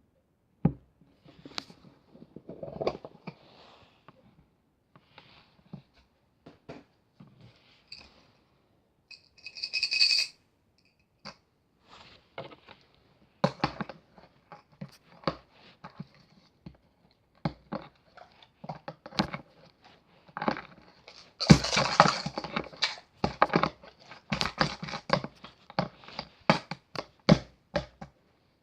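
Irregular clicks, taps and rustling from small objects being handled, busiest in the last third. About ten seconds in there is a brief hiss with a high whistle-like tone.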